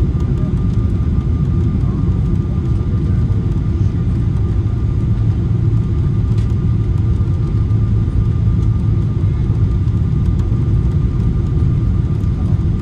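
Cabin noise of a Boeing 777-300ER on approach, heard from a window seat: a steady low rumble of airflow and its GE90-115B engines, with a faint steady whine over it.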